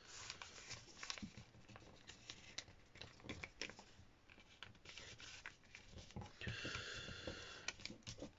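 Sheet of paper being handled, folded and creased by hand on a wooden tabletop: faint, irregular rustling and crinkling with light taps, and a longer rubbing stretch near the end as the folds are pressed flat.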